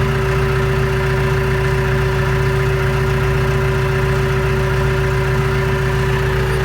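Tractor engine running at a steady speed, with a steady whine of one pitch held over it.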